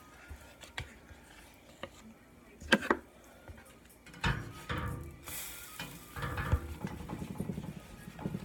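Pancake batter being stirred with a spoon in a bowl: scattered clinks, two sharp knocks about three seconds in, then quick repeated scraping and knocking strokes of the spoon against the bowl through the second half.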